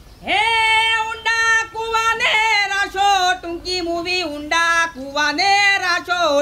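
A woman singing a Gujarati folk song unaccompanied or nearly so, in long held notes with vibrato that step from one pitch to the next. The song starts about a third of a second in.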